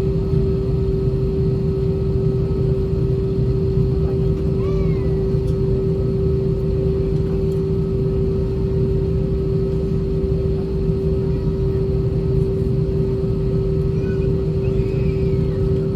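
Cabin noise of an Airbus A320-232 taxiing with its IAE V2500 engines at idle: a steady hum with one constant drone tone over a low rumble.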